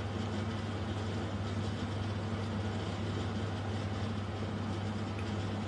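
A steady low hum under faint even background noise.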